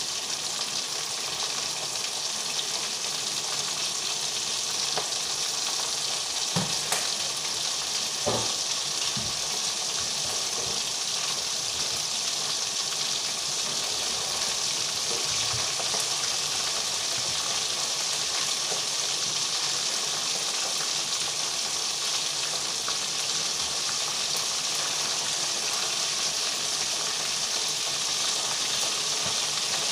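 Chicken pieces deep-frying in hot oil in a pot, a steady sizzle throughout, with a couple of short utensil knocks about six and eight seconds in.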